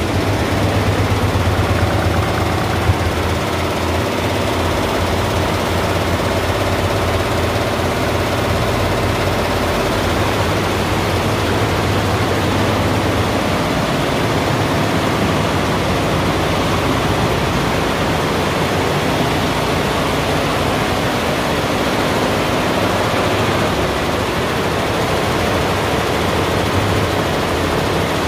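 Yuemei multi-head computerized embroidery machine running in production: a steady, dense mechanical running noise from the many stitching heads, with one sharp click about three seconds in.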